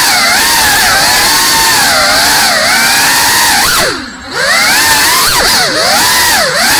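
Geprc Cinelog 35 cinewhoop's brushless motors and ducted propellers whining, the pitch rising and falling constantly with the throttle. About four seconds in the throttle is briefly cut, so the whine drops and goes quieter, then climbs back up.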